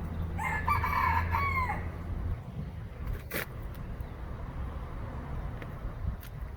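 A rooster crowing once, a call of about a second and a half that drops in pitch at the end, over a low steady hum that stops soon after.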